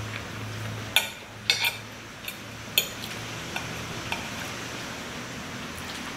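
Metal knife and fork clinking and scraping against a ceramic plate as a pupusa is cut. There are several sharp clinks in the first three seconds and a few lighter ones after, over a steady low hum.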